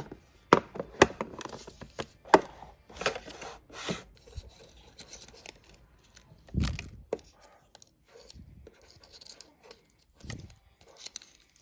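Hands handling a plastic sticker-making case and paper stickers: a string of sharp clicks and taps with rubbing and scraping between them, and one duller knock about six and a half seconds in.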